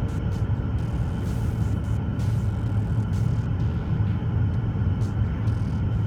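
BMW X6 xDrive40d's 3.0-litre six-cylinder turbodiesel running at a steady pace: a constant deep drone mixed with road noise, with no clear rise or fall in revs.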